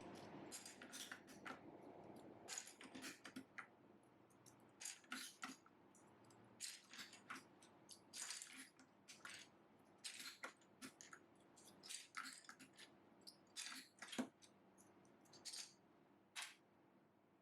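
Faint, irregular light clicks and clacks of plastic keycaps being handled and knocking together, sometimes in quick little clusters.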